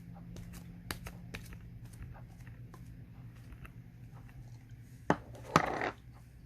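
Slime being played with by hand: a run of small sticky clicks and pops, then a sharp snap about five seconds in and a louder crackling burst just after it.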